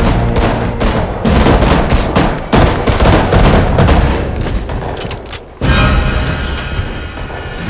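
Rapid, repeated bursts of gunfire over a film score, stopping about five and a half seconds in, followed by a sudden loud surge of sound.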